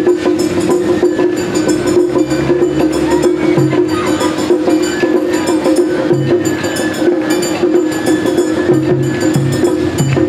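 Matsuri-bayashi festival music played live: a quick run of crisp percussion strikes over a steady held tone.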